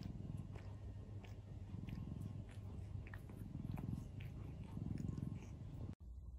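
A cat purring steadily, the rumble swelling and easing with each breath about every second and a half, until it cuts off suddenly near the end.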